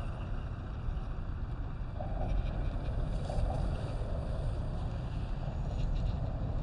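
Steady low rumble of wind on the microphone, with no clear motor whine or impacts.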